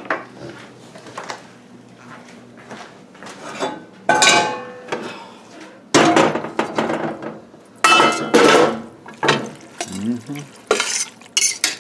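Stainless steel pot lid handled and a utensil stirring in a pot of cooked collard greens: metal clanks and clatters of lid and spoon against the pot, the loudest about four, six and eight seconds in, the first one ringing briefly.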